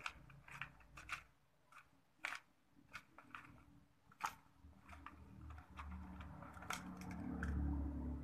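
Light plastic clicks and taps, irregular and scattered, from plastic mechanical pencil parts and a fishing-float stick being handled against each other. A low rumble swells near the end.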